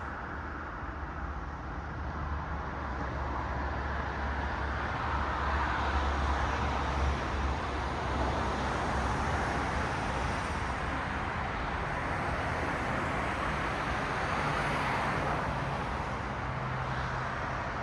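Road traffic: cars passing on a city street, their tyre noise swelling and fading, over a steady low engine hum. The passing noise grows loudest about six seconds in and again near the end.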